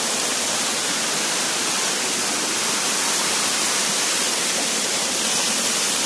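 Small waterfall pouring over rocks: a steady, even rushing hiss of falling and splashing water.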